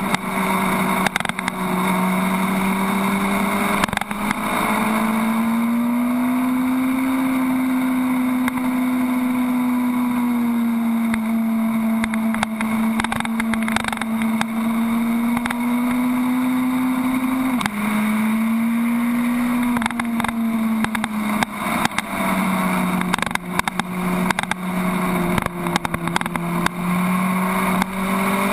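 Suzuki Hayabusa's inline-four engine running hard at steady high revs on track, heard close from the bike's tail, with rushing wind noise. The engine note climbs slowly, holds, then drops sharply about two thirds of the way through, rises briefly, and drops again to a lower steady note near the end.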